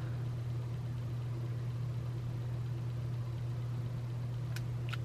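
Steady low background hum, unchanging throughout, with two light clicks near the end.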